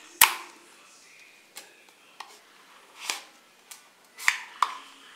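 Paperboard box of an Apple MagSafe charger being opened by hand: about seven sharp snaps and crackles of card. The loudest comes about a quarter second in, and two more come close together past the four-second mark as the inner box slides out of its sleeve.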